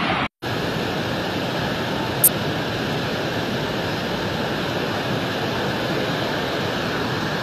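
Muddy floodwater of a river in spate rushing past in a steady, loud torrent. A single brief sharp click about two seconds in.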